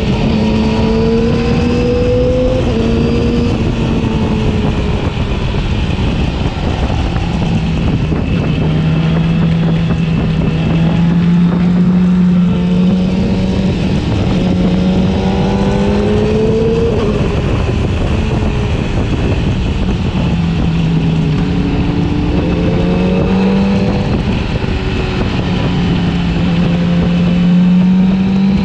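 Yamaha R6's inline-four engine running under way, its pitch climbing several times as the rider accelerates and dropping back at each shift or roll-off of the throttle, over steady wind and road noise.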